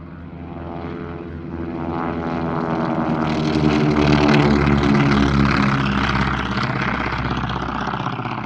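Propeller-driven aircraft flying past: its piston engine drone builds to its loudest about four to five seconds in, then begins to fade.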